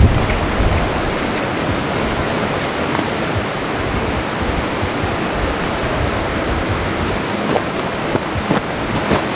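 Steady rushing noise with a few faint clicks near the end.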